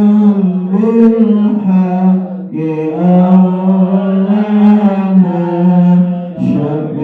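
A single voice chanting a prayer in long, held melodic phrases, with short breaks between phrases.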